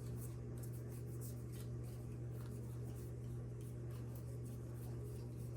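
A steady low electrical hum runs throughout. Over it come faint papery rustles and light ticks of trading cards being handled.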